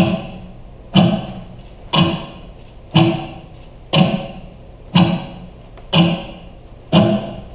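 Steady percussion beat: one sharp hit each second, each ringing briefly before the next.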